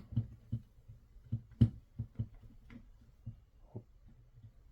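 Plastic clamshell housing halves of a cordless impact driver being handled and pressed together: a run of irregular light clicks and taps, one sharper knock about a second and a half in.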